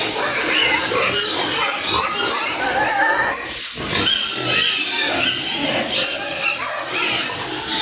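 Many pigs grunting and squealing at once, a continuous dense din of overlapping calls.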